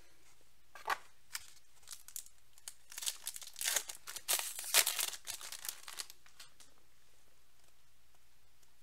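Foil trading card pack being torn open and its wrapper crinkled by hand, a brief crackle about a second in and a dense run of tearing and crinkling between about three and five seconds, then quiet.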